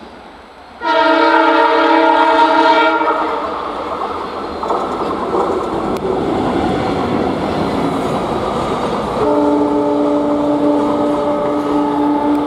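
WDG4 (EMD) diesel locomotive's multi-tone horn sounding twice: a blast of about two seconds starting about a second in, and a second, slightly lower-pitched blast of about three seconds near the end. In between, the steady noise of the locomotive and container wagons passing on the rails.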